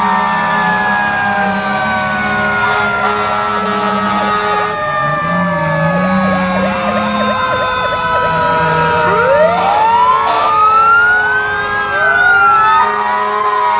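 Several fire truck sirens sounding at once, their pitches overlapping: long, slowly falling wails, with another siren sweeping up and down from about nine seconds in.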